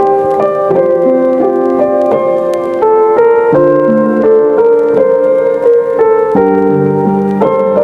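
Background music: a keyboard melody in steady, evenly changing notes.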